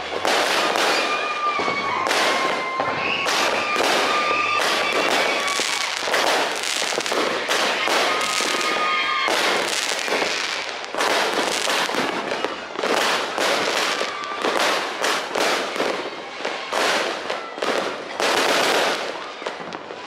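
Firecrackers going off in a rapid, almost unbroken string of cracks and pops.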